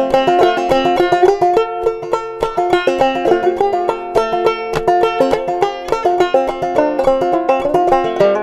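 Solo clawhammer banjo playing a fast old-time fiddle tune: an 1897 Lyon & Healy model 130 banjo with nylon strings, in gDGBD tuning pitched about a whole tone low, with quick plucked notes and drone-string strokes in a steady rhythm.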